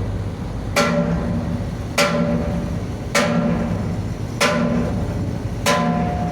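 Hammer blows on a sheet-metal tugboat exhaust stack being beaten into shape by hand: five sharp, ringing strikes a little over a second apart, with a low hum underneath.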